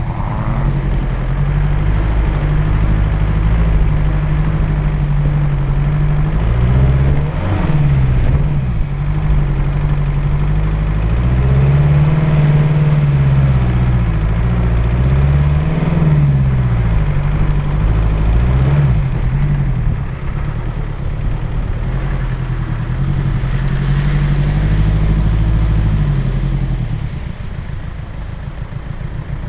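Land Rover Discovery 1's engine working off-road, its revs rising and falling again and again over rough ground, heard close from on the bonnet. It eases off near the end.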